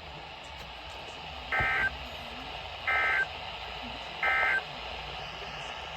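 EAS end-of-message data bursts from a NOAA Weather Radio broadcast: three short, identical buzzy squawks of digital tone-shift data, about 1.4 s apart, over steady radio hiss. They signal that the alert message is over.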